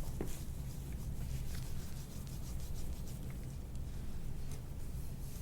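Faint rubbing and rustling, with a few light scrapes and ticks, over a steady low hum.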